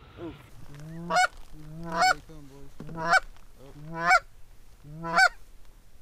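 Canada goose call blown by hand: five honks about a second apart, each a low note that breaks sharply up into a higher one.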